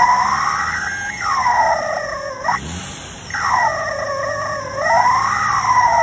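Rubber chickens taped into a Nissan 350Z's exhaust pipe squealing in the exhaust flow: a long wailing squeal that slides up and down in pitch, breaks off about halfway through with a short low thump, and starts again.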